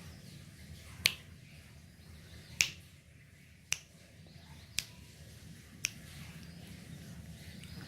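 Five sharp clicks about a second apart, the first two loudest, over a steady low hum.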